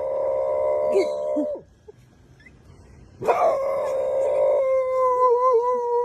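A dog howling: two long held howls, the first ending about a second and a half in, the second starting about halfway through, wavering and dropping in pitch as it ends.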